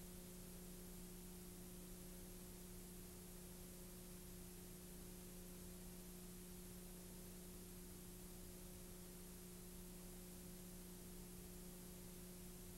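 Near silence: a faint steady electrical hum under hiss.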